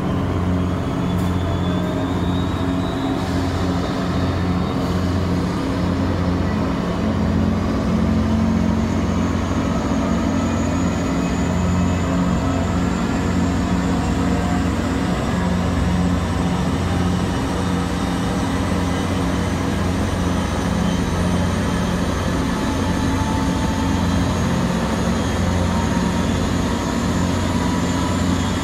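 Boeing Jetfoil's Allison 501-KF gas turbine starting up: a high whine climbs slowly and steadily as the turbine spools up, over a steady low drone.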